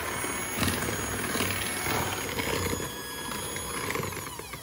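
KitchenAid electric hand mixer running steadily, its beaters whirring through cookie dough; near the end the motor's whine falls in pitch as it slows down.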